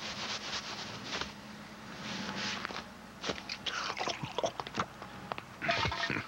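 Cartoon sound effects: a rapid string of clicks and taps, with a slurp from a drink can around four seconds in and a short hissy burst near the end.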